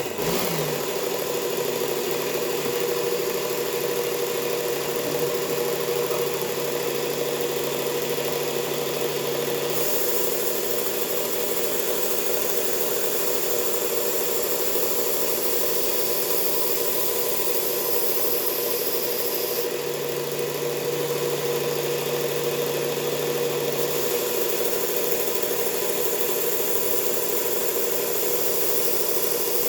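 Powered belt sharpener switched on and running steadily, a coarse abrasive belt grinding the edge of a Ka-Bar 1266 tanto knife blade. The high grinding hiss brightens and dulls in long stretches as the blade is worked along the belt.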